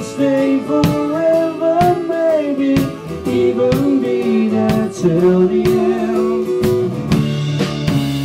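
Live band playing a song on three acoustic guitars and a drum kit, with a lead vocal singing the melody.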